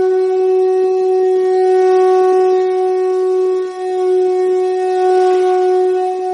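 A blown wind instrument holding one long steady note, with a brief dip in loudness a few seconds in.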